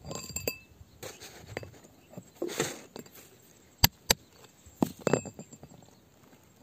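Pointed metal rod striking and scraping rock and gritty soil. There is a ringing clink just after the start, a gritty scrape in the middle, then four sharp taps, the loudest about four seconds in.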